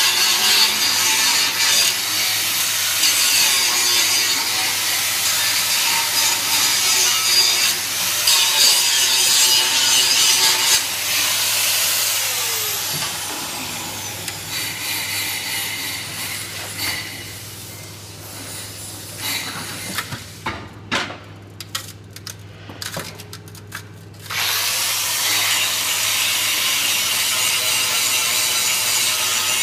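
Angle grinder grinding steel, then spinning down with a falling whine a little before halfway. A quieter stretch with scattered short knocks follows, and about five seconds from the end the grinder starts up and grinds again. A steady low hum runs underneath.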